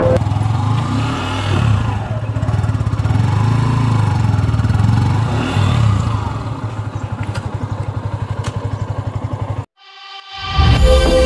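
Motorcycle engine running while the bike is ridden, with a fast, even pulsing in its sound over the last few seconds. It cuts off abruptly near the end, and music starts.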